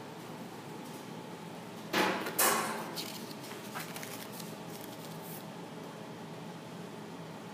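Paper page of a spiral-bound notebook being handled and turned: two quick rustles about two seconds in, then a few faint ticks, over a steady low hum.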